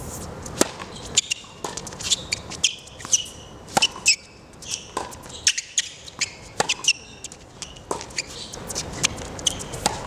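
Tennis rally on a hard court: sharp pops of the ball off the strings and its bounces on the court at irregular intervals, beginning with a serve, with short high squeaks among them.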